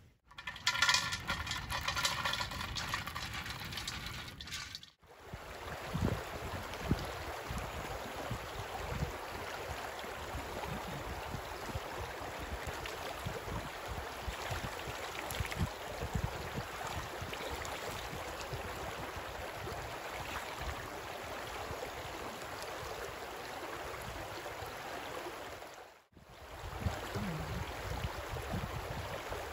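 A shallow mountain stream running over rocks: a steady rush of water. It comes in after a brief, louder opening stretch with several steady high tones.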